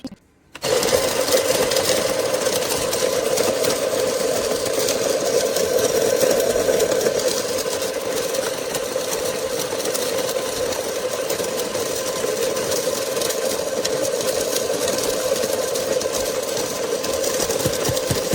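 Electric conical burr coffee grinder switched on with a click, its motor then running steadily.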